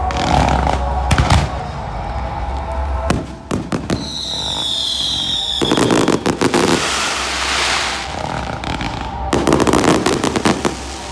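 Fireworks going off: a few sharp bangs, then a whistling firework with a slowly falling whistle about four seconds in, followed by two long volleys of rapid crackling bangs.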